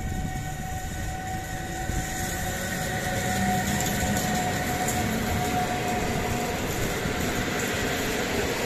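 PKP Intercity EU160 Griffin electric locomotive and its Intercity coaches pulling away from the platform. A steady electric whine from the locomotive fades out about two-thirds of the way through, and the rolling wheel-on-rail noise of the coaches slowly grows louder.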